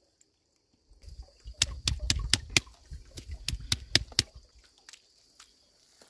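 A hand stone pounding on a boulder: a quick run of about a dozen sharp stone-on-stone knocks, about four a second, thinning out near the end. It is crushing smoked tomato, chillies and herbs into chutney.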